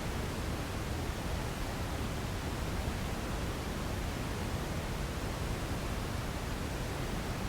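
Steady sleep-relaxation white noise: an even, unchanging hiss, fuller in the low end than at the top.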